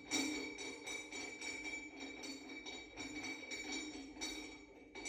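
Threaded filling connector being unscrewed by hand from a breathing air cylinder: a run of light metallic clicks and scrapes, about three a second, as it is turned.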